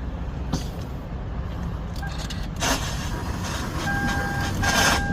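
Preparing to crank a car with a failing starter: a few sharp clicks over a steady low rumble, then about four seconds in a steady electronic warning tone comes on, briefly breaking and resuming.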